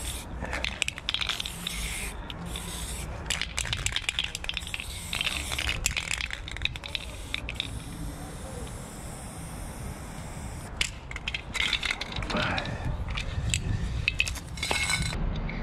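Aerosol spray-paint can hissing in repeated short bursts, with clicks and rattles in between, as the can is used up to the last drop.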